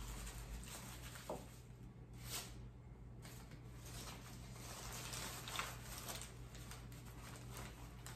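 Faint rustling of artificial flower and leaf stems being tucked into a grapevine wreath, with a few light clicks along the way.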